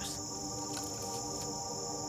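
Steady high-pitched buzz of field insects such as crickets, under background music of held notes.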